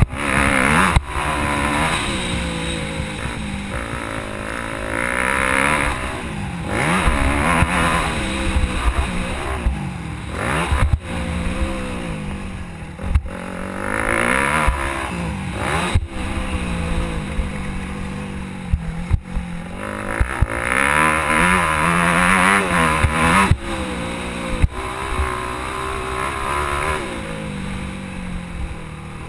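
Yamaha YZ250F four-stroke single-cylinder motocross engine revving hard and easing off over and over as it is ridden round a dirt track, its pitch climbing and falling with each stretch. A few sharp knocks come through now and then.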